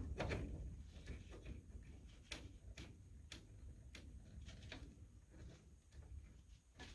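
Small nuts being threaded by hand onto the metal mounting posts of a UV light: faint, irregular clicks and ticks of metal on metal, tapering off near the end.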